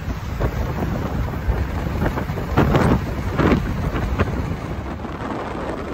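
Wind buffeting the microphone: a steady low rumble, with a few louder bursts of noise around the middle.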